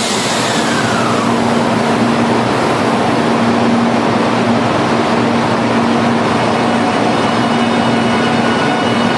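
300 series Shinkansen train running: a loud, steady rushing noise with a steady low hum, and a tone gliding down in the first second.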